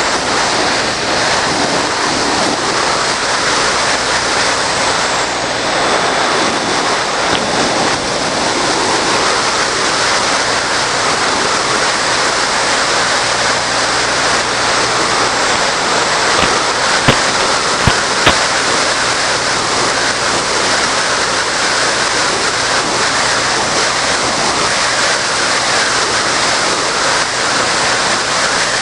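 Steady, even rushing noise with no clear motor tone, with three sharp clicks a little past the middle.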